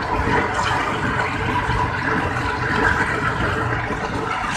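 Steady rumble and rush of a moving passenger train heard from inside a coach: wheels running on the rails, with wind noise.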